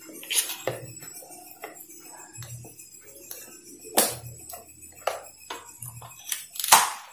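Scattered clicks and light clatter of a power cord, plug and plastic blender parts being handled on a tiled floor. A sharper click near the end is the blender's plug being pushed into a power strip socket.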